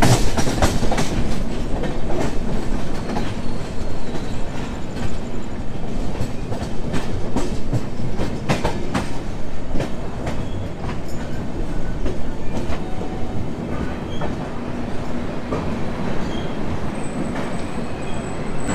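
Passenger express train running on the rails: a steady loud rumble with the wheels clicking and clattering over rail joints.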